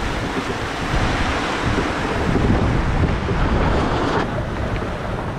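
Rushing water along a fast-moving sailboat's hull with wind buffeting the microphone, a steady noisy wash.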